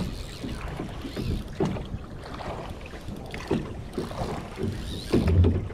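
Drift boat on a moving river: water washing against the hull while the oars are worked, with irregular knocks and a louder low thump near the end.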